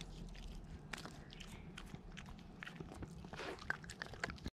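Jack Russell terrier chewing a wooden stick: scattered small crunches and cracks of wood.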